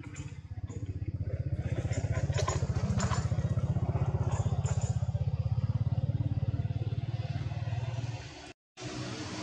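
An engine running with a low, rapid, evenly pulsing rumble that builds over the first second and then holds steady.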